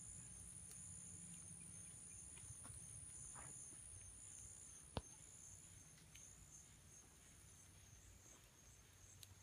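Faint insects calling: a steady high-pitched whine with a pulsing chirr just below it, over near silence. A single sharp click about five seconds in.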